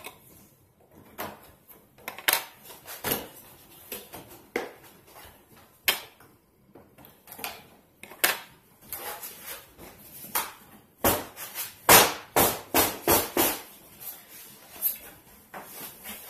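Packaging of a boxed toy RC car being worked open by hand: irregular clicks, knocks and plastic rattles, busiest about eleven to fourteen seconds in.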